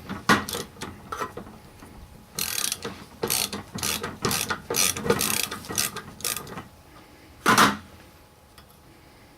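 Socket ratchet wrench clicking in short runs as a bolt is backed out, then a single loud metal clank about seven and a half seconds in.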